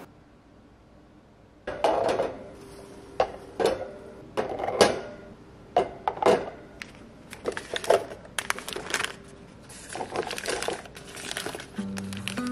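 Plastic storage baskets being handled and set down on a wire pantry shelf: an irregular series of light knocks and clatters with some rustling of paper stick packets. Soft background music comes in near the end.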